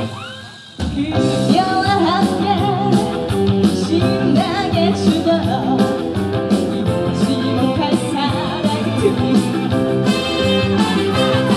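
Live band playing an upbeat twist number. The music drops out briefly at the very start and the full band comes back in a little under a second in, with a melodic lead line over the beat.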